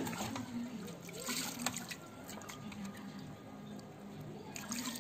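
Water sloshing, splashing and dripping as a hand washes cut fish pieces in a clay pot, the pieces lifted out and dripping. The splashes come in irregular spells, more at the start, about a second and a half in and near the end, and are quieter in between.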